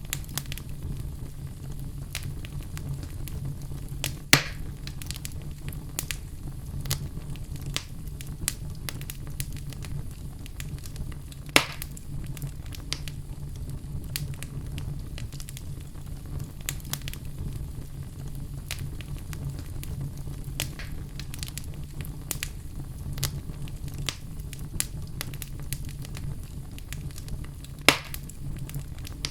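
Crackling fire: a steady low rumble with frequent small crackles. Three louder pops stand out, about four seconds in, about twelve seconds in and near the end.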